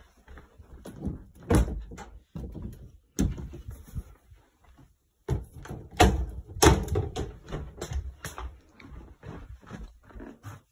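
Irregular knocks and thumps of footsteps and handling noise as someone walks with the phone. A wooden door swings open with louder knocks about six seconds in.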